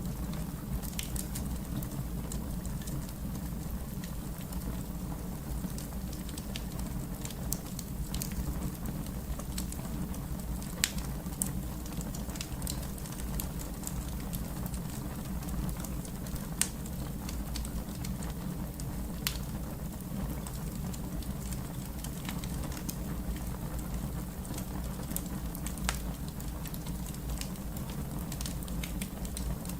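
Fire crackling: a steady low rumble with scattered sharp pops, a few of them louder than the rest.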